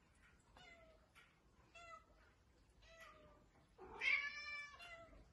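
Egyptian Mau cats meowing: a string of short, high, falling meows every half second or so, then one louder, longer meow about four seconds in.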